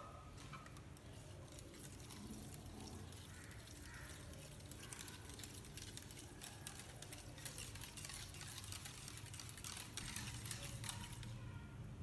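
Coil spring whisk beating custard into whipped cream in a bowl: faint, rapid clicking and scraping of the wire against the bowl.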